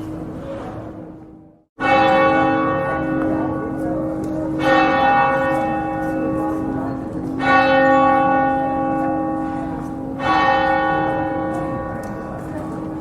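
A church bell tolling slowly: four strokes about three seconds apart, each ringing on and fading. The strokes begin about two seconds in, just after a short drop to silence.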